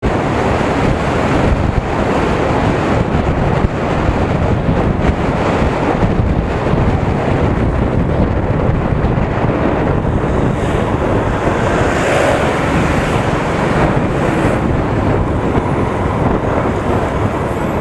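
Wind buffeting the microphone of a camera on a moving motorcycle: a loud, steady rush of noise with no clear engine note.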